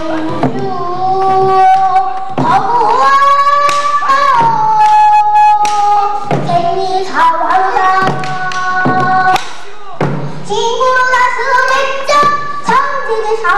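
A young girl singing pansori: long held notes that bend and slide in pitch, broken by short pauses. Sharp drum strokes, typical of the buk barrel drum that accompanies pansori, fall every second or two.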